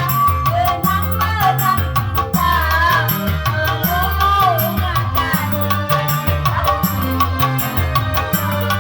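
Loud music with a steady drum beat, heavy bass and a wavering melody line.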